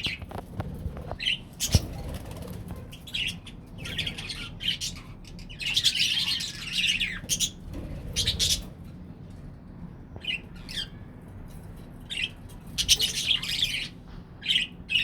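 A colony of budgerigars chattering and squawking in bursts, busiest in the middle and near the end, with one sharp click about two seconds in.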